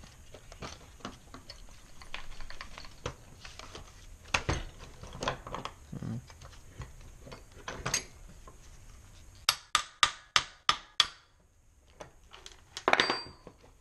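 Metal clinks and knocks as a small two-stroke engine's aluminium case and steel hand tools are handled on a wooden table. Near the end comes a quick run of about six sharp, ringing metal taps at roughly four a second, followed by one more short clatter.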